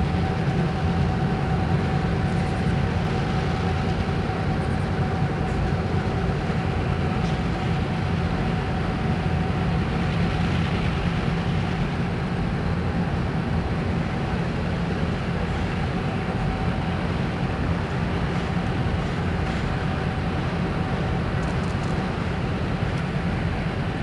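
Union Railroad SW-series switcher diesel locomotives hauling a loaded ingot train across a steel truss bridge, giving a steady low rumble with a thin whine running through it.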